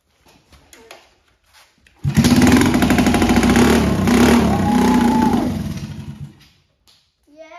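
A 1983 Honda ATC110's small single-cylinder four-stroke engine catches about two seconds in on a first start attempt after a carburettor rebuild. It runs loudly for about three seconds, then fades and dies, at a time when the float bowl was not yet filling properly, which the owner puts down to a sticking float. Near the end comes a short high-pitched call.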